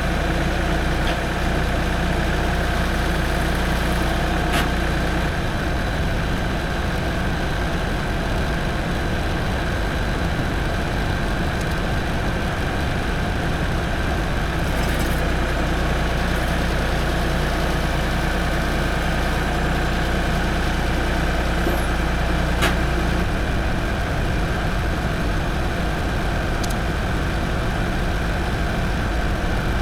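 Tractor engine running steadily while carrying a load on its fork, its low note shifting a few times. A couple of brief sharp clanks.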